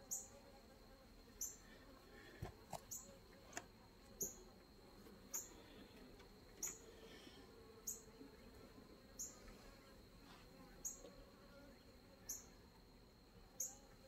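Faint hum of honeybees around an open hive, with a short high chirp repeating about every 1.3 seconds. A few light clicks come about two and a half to three and a half seconds in.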